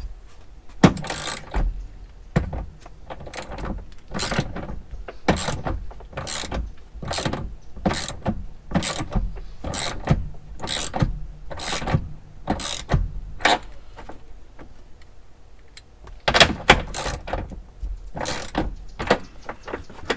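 Hand ratchet wrench clicking in steady strokes, about two a second, then a pause and a few quicker strokes near the end: seat-belt anchor bolts being run in.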